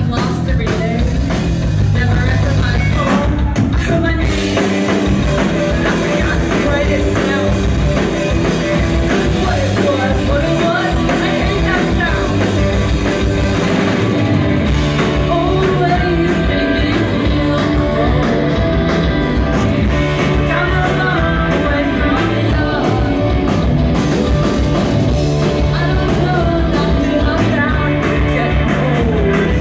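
Live rock band playing: electric guitar, bass guitar and drum kit, with lead vocals sung into a microphone over a steady beat.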